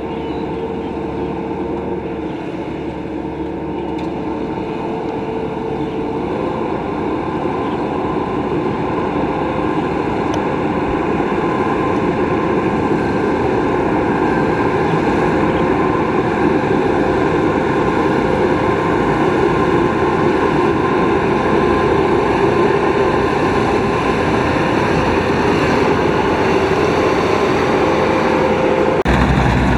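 Rice combine harvester running steadily, a dense mechanical drone that grows louder over the first half or so. The sound changes abruptly near the end.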